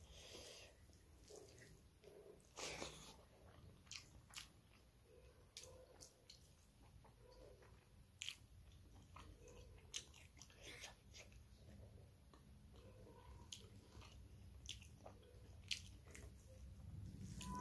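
Quiet close-up chewing and mouth sounds of a person eating rice and curry by hand, with scattered short sharp clicks and smacks.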